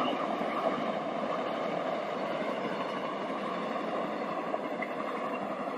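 Passenger train running past on the rails, a steady rumble of wheels and cars that eases off slightly as the last cars pull away.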